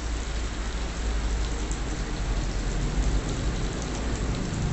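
Slices of pork sizzling on an electric grill plate, a steady crackling fizz, with a steady low hum underneath.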